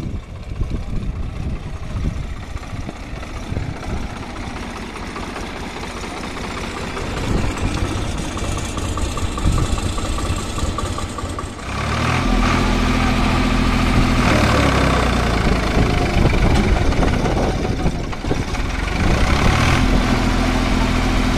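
Tractor's diesel engine running. In the first half, shovels scrape and knock in the soil, and about halfway in the engine comes in loud and steady. It dips briefly and rises again near the end.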